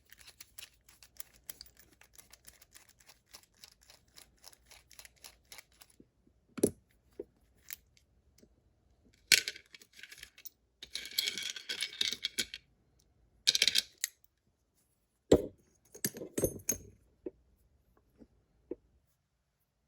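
Metal parts of a Kryptonite padlock being handled as it is taken apart: a run of faint rapid clicks, then scattered sharp clacks, a scraping rustle and a cluster of small clicks.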